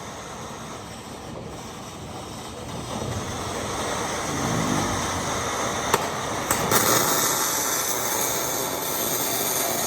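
MIG welding: a couple of sharp arc-strike clicks about two-thirds of the way in, then a steady crackling arc hiss through the rest, over an ongoing steady background noise.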